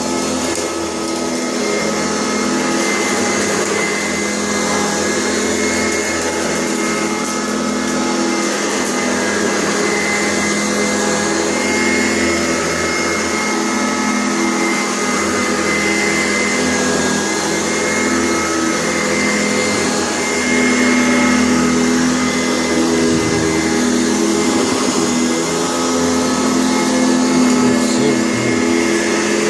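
Sanitaire SC684 upright vacuum cleaner running steadily, its motor giving a constant hum with a high whine over it.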